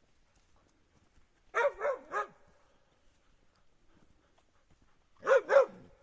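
Husky barking: three quick barks, a pause of a few seconds, then two more barks near the end.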